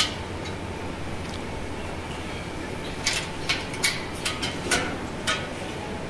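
A quick run of about eight sharp, light clicks or clinks over two seconds, starting about halfway through, over a steady background hum.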